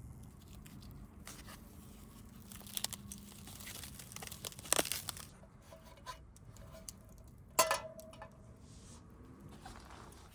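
Plastic food packaging being crinkled and torn open, with scattered clicks and two sharp clinks, the second ringing briefly.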